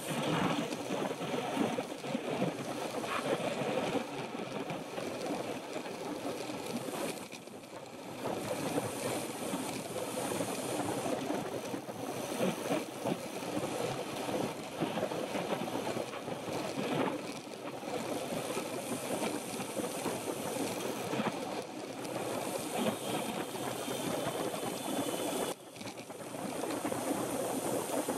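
Wind rushing over the microphone of a camera on a moving road bike, mixed with tyre and road noise; it dips briefly about eight seconds in and again near the end.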